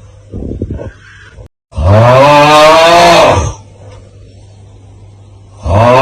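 A man's loud, drawn-out "aauuggh" groan, the TikTok meme sound effect, rising and then falling in pitch over about two seconds. It comes after a short quieter sound, and the loop starts the next groan near the end.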